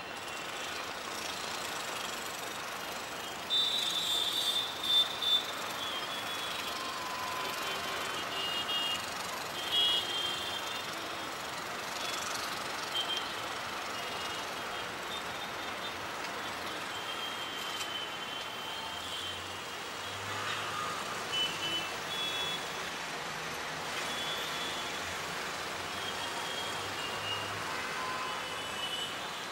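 Steady hum of distant city traffic, with short high-pitched tones sounding now and then, loudest a few seconds in and again around ten seconds in.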